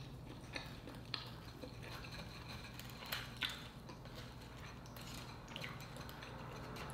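Faint clicks and scrapes of a small wooden spoon scooping uni out of an opened sea urchin shell, with a few sharper ticks about one second in and again around three seconds in.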